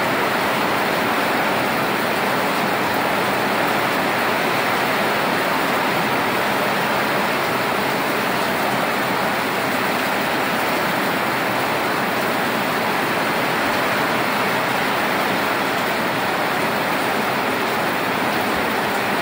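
Rain pouring down steadily: a dense, even hiss with no change in strength.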